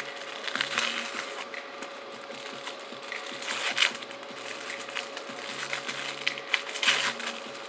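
Red paper wrapper of a pack of Black Cat lady finger firecrackers crinkling and tearing as it is opened by hand, in irregular rustles and crackles.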